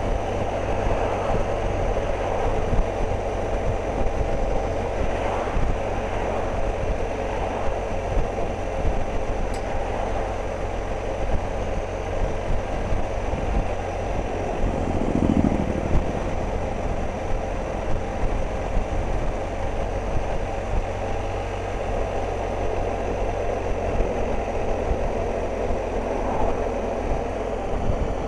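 Riding a BMW R 1250 GS Adventure at a steady town speed in third gear: a heavy rumble of wind on the camera microphone with the bike's boxer-twin engine running underneath.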